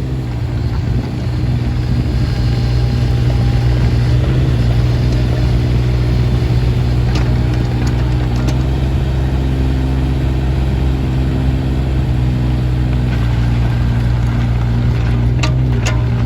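Kubota KX016-4 mini excavator's three-cylinder diesel engine running steadily, its note shifting slightly a few times. A few sharp clicks come through, two of them near the end.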